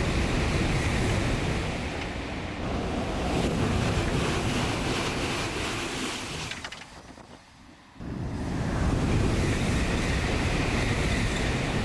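Shinkansen bullet train passing at high speed a couple of metres away: a loud rushing roar of air and wheels with wind buffeting the microphone. It fades briefly about seven seconds in and cuts back in abruptly a second later.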